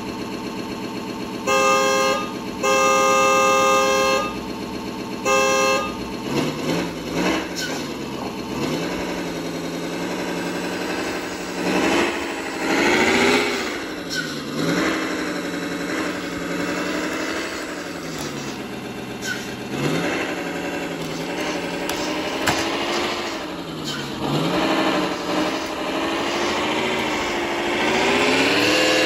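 Simulated truck engine sound from an ESP32 RC engine sound controller, played through a small speaker on a WPL B36 Ural 4320 RC truck. It idles steadily while a horn sounds three times in the first six seconds, the longest blast in the middle. After that the engine revs up and down again and again as the truck crawls in low range and virtual first gear, with virtual inertia.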